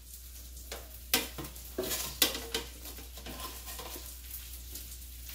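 Metal tongs clicking and scraping against a Cosori air fryer's basket, with several sharp clacks between about one and two and a half seconds in, the loudest just after two seconds. Oil sizzles steadily in a frying pan underneath.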